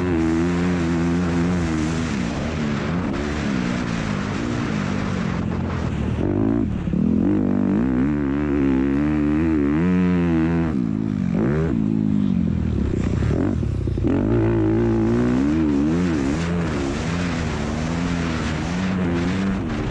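Honda CRF250R motocross bike engine racing at close range, the throttle opening and closing so the pitch rises and falls every second or two, with a few short drops where the rider shuts off.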